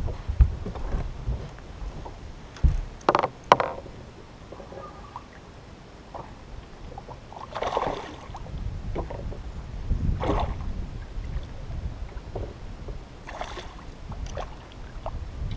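A few sharp knocks on a bass boat's carpeted deck, then short bursts of water splashing at the side of the boat as a hooked largemouth bass is landed by hand, over low wind rumble on the microphone.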